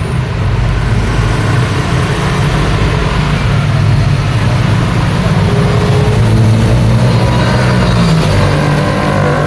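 Street traffic: motor vehicle engines running close by, a low steady engine hum over tyre and road noise that grows a little louder about four seconds in.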